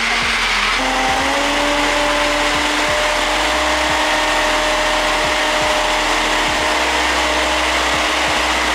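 Countertop blender running, blending juice and ice into a slushy: a loud, steady whir. Its motor pitch rises slightly about a second in, then holds.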